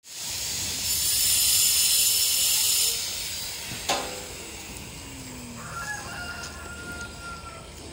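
Construction-site sounds: a loud, high hiss for about the first three seconds, then a sharp ringing clink about four seconds in, like broken tiles or a tool knocking. Near the end a faint held call, which may be a rooster crowing.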